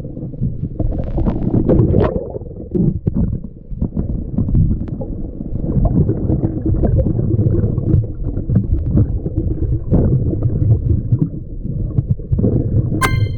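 Muffled, uneven rumbling and gurgling of water moving around a GoPro camera's waterproof housing while snorkelling, with scattered small knocks. A brief ringing ping sounds near the end.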